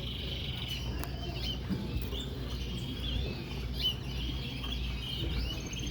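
Many caged canaries chirping and trilling together, short high calls and fast trills overlapping, over a steady low hum.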